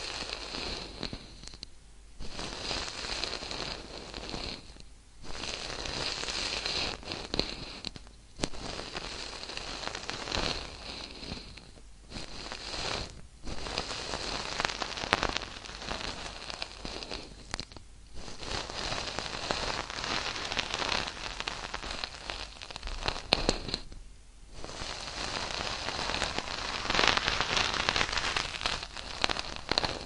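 Dense crackling noise, thick with fine clicks, in stretches of a few seconds each that break off briefly between them.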